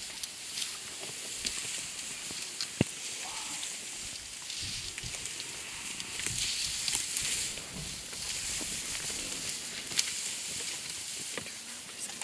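African bush elephants feeding in dry grass close by: rustling and tearing of grass as trunks pull it up, with sharp snaps and clicks scattered through, over a steady high hiss.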